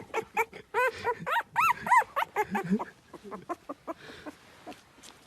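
Puppy whimpering in a quick run of short, high yips, each rising and falling in pitch, about four a second, fading out after about three seconds.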